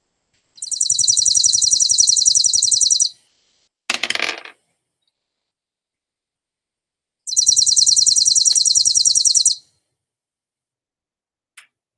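Recorded chipping sparrow song: a dry, rapid, even trill of high chips lasting about two and a half seconds, heard twice.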